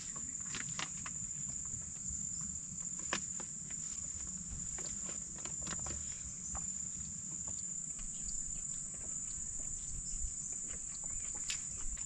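Insects singing in a steady, unbroken high-pitched drone, with faint scattered crinkles and ticks from a paper food wrapper being handled.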